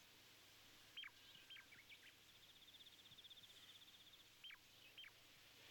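Near-silent woodland ambience with faint bird calls: two pairs of sharp whistles falling steeply in pitch, about a second in and again near the end, and a fast high trill lasting about two seconds between them.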